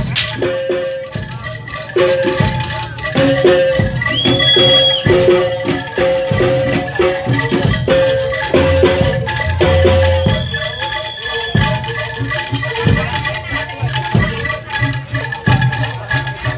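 Live jaranan gamelan music: drum strokes and struck metal notes in a steady beat, with rattling percussion. A high note is held for about a second, twice.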